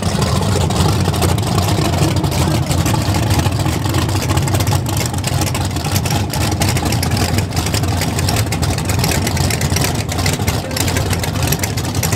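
Race-car engines idling loudly with a steady low rumble, with no revving.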